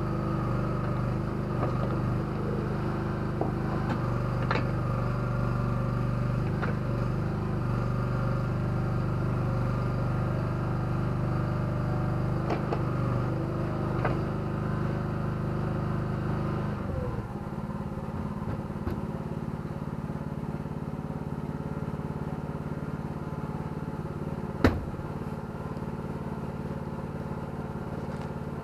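Engine of an ATV and towable backhoe running steadily. About halfway through its sound changes and its deepest hum drops away. A few sharp metallic knocks sound now and then, the loudest one near the end.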